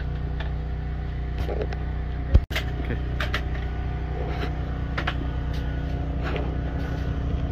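Car running steadily with a low engine and road hum. There are a few faint ticks, and one sharp click about two and a half seconds in, just before a momentary dropout.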